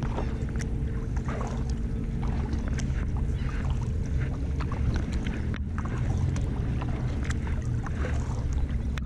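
Kayak paddle strokes: the blade dipping in and water splashing and dripping in irregular small splashes, over a steady low hum.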